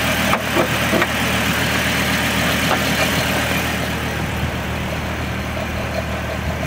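Pickup truck engine idling steadily, with a couple of light knocks in the first second.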